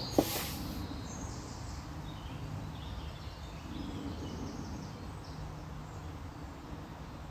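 Nature ambience: a steady low background noise with faint, short, high bird chirps. A single sharp click comes just after the start.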